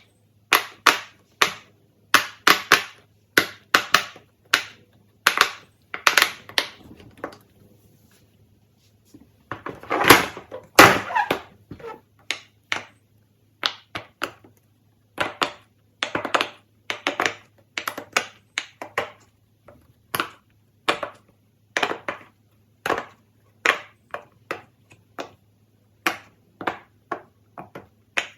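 A run of short clicks and pops from fidget toys being handled, about one or two a second, with a short pause about eight seconds in and a longer, noisier burst around ten seconds in. A faint steady low hum sits underneath.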